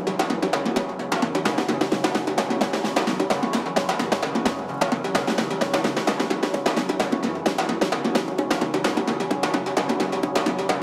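Soundtrack music driven by fast, busy drumming: a steady rapid beat of snare and kick hits over a sustained musical backing.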